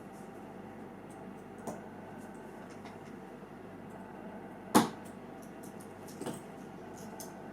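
Small sharp clicks of metal handling while a spring bar is worked into a watch's lug to fit the bracelet: three clicks, the loudest a little under five seconds in, over a steady room hiss.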